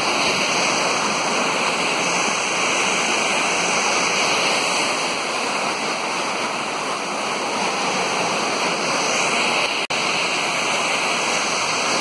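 Waterfall pouring into a rock pool: a steady, loud rush of water, broken for an instant near the end.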